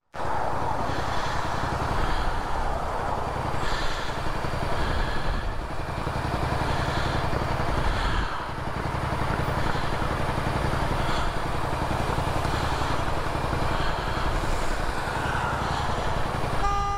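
Motorcycle engine and road traffic running steadily on a wet street. Near the end a car horn sounds once, briefly.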